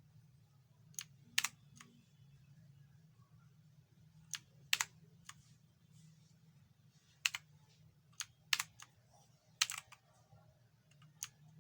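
Blue-switch keys on an Inphic K12 RGB mechanical keyboard being pressed one at a time at irregular intervals, each giving a sharp click, sometimes two in quick succession. A faint steady low hum lies underneath.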